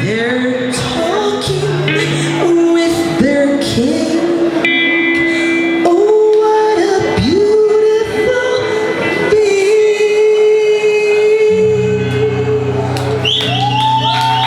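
Live reggae band music with a singer's wordless sliding vocal and one long held note through the middle; the band's bass drops out early on the vocal passage and comes back in near the end.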